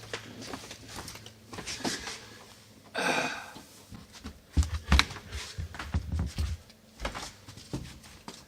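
Indoor handling noises: scattered clicks and knocks, a brief scraping rush about three seconds in, and two heavy thumps around five seconds, the loudest sounds.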